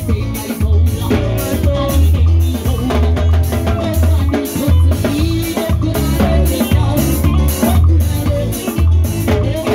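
Live band playing upbeat music: drum kit beating a steady rhythm over a heavy bass line, with melodic parts on top.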